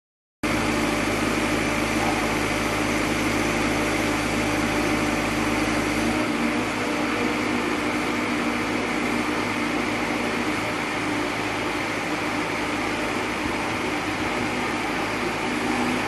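Crawler-mounted auger drilling rig running, its motor-driven spiral auger boring into soil: a steady mechanical drone with a hum. About six seconds in the deepest part of the hum drops away while the rest runs on.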